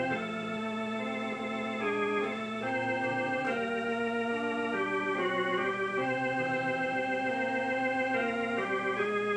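Organ music: slow held chords that change every second or so, with no voice.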